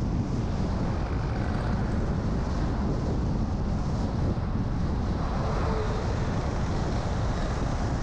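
A car driving along a road, giving a steady, even rumble of road and engine noise.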